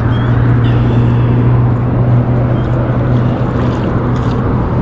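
A steady, loud, low engine drone that holds unbroken, with a hiss of noise over it.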